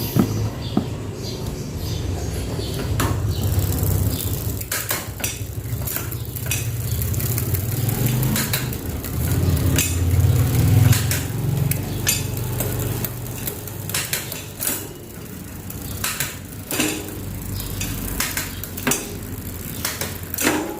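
Mountain bike drivetrain turned by hand: a steady running of chain over the sprockets with scattered sharp metallic clicks, as the gears are checked on the freshly adjusted derailleur.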